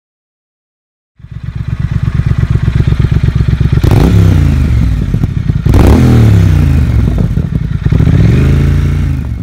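Motorcycle engine starting up about a second in and running with a fast pulsing beat, then revved up and let fall back three times.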